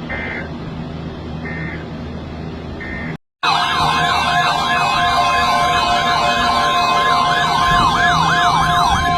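NOAA Weather Radio alert: three short bursts of the digital SAME header tones, a brief silence, then the warning alarm goes off. A steady alarm tone sounds with several weather radios' warbling siren alerts layered on top, announcing a severe thunderstorm watch.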